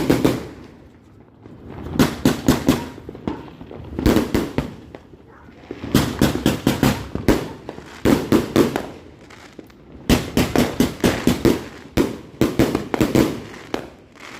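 Consumer multi-shot firework cake going off: clusters of rapid crackling bangs, a new volley about every two seconds.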